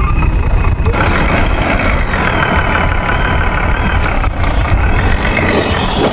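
Steady truck-engine rumble, like an idling truck, with no break or rev change.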